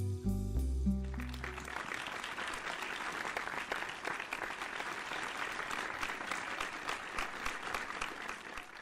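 The last notes of background music, then an audience applauding for several seconds, dying away near the end.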